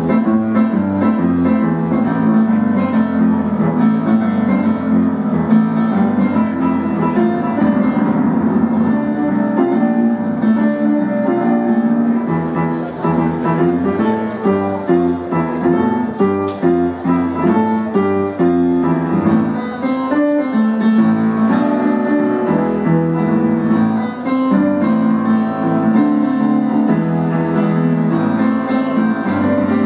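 Solo piano played live: continuous chords and melody, with no break.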